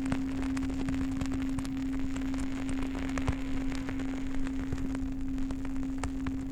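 Campfire crackling with many irregular sharp pops over a low rumble, beneath a steady low drone of a singing bowl held on one pitch.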